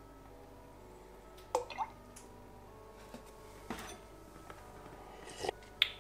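Coconut milk being poured into a glass bowl on a kitchen scale: a faint trickle, with a few soft knocks against the bowl.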